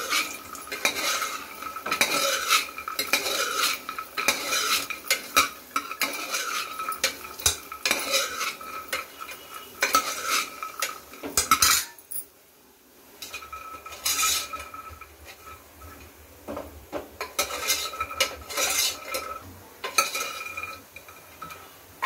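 A steel spoon scrapes and clinks against the inside of an aluminium pressure cooker as fried soya chunks are stirred, the metal ringing with each stroke. The stirring stops for about a second and a half a little past halfway, then starts again.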